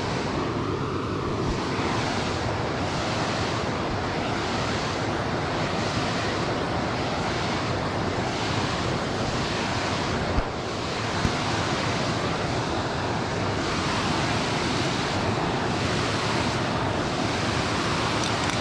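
Steady rush of water pouring over a small dam spillway, with wind buffeting the microphone. Two small knocks come a little past the middle.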